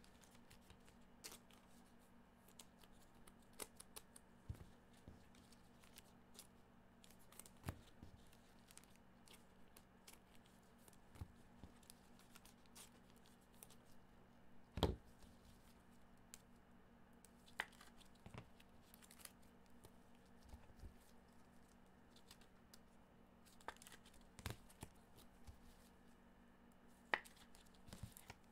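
Near silence with scattered faint clicks and rustles of trading-card packaging being handled and torn, the loudest snap about halfway through, over a faint steady hum.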